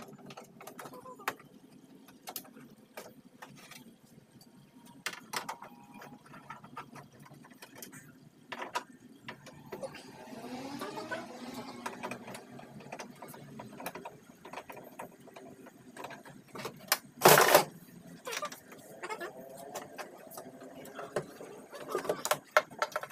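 Scattered clicks and knocks of tools and metal parts being handled while a car power window regulator and its motor are taken apart, with one loud clatter about 17 seconds in.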